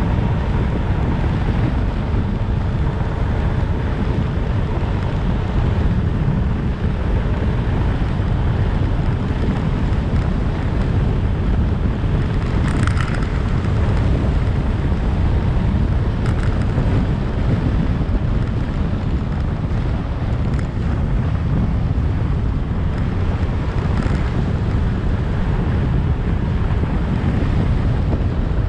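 Steady low wind rush buffeting the microphone of a 2022 Yamaha Zuma 125 scooter riding along a road, with the sound of the moving scooter under it.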